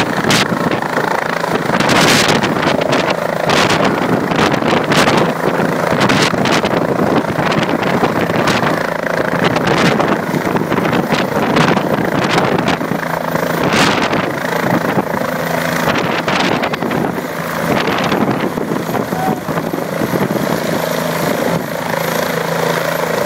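Bell helicopter's turbine engine and main rotor running loud and steady as it sets down on its skids from a low hover, then sits on the ground with the rotor still turning. Rotor wash buffets the microphone in repeated gusts.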